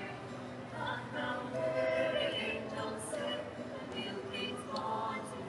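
Mixed choir of men's and women's voices singing a Christmas carol.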